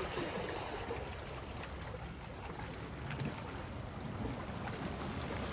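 Wind rumbling on the microphone over seawater lapping and washing against the jetty rocks: a steady, even noise.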